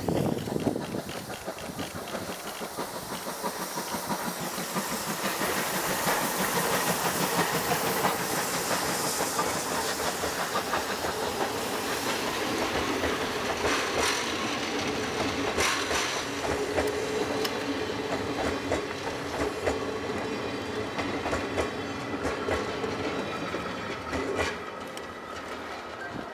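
JNR Class C11 steam locomotive (C11 171) drawing near and passing with a loud hiss of steam, then its passenger coaches rolling by with the clickety-clack of wheels over rail joints. The noise builds over the first few seconds, is loudest as the engine goes by, and drops near the end as the train moves away.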